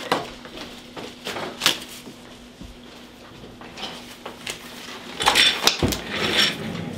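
Blue nitrile exam gloves being pulled from a wall dispenser and worked onto the hands: scattered rustles and snaps, busiest about five to six seconds in, over a faint steady hum.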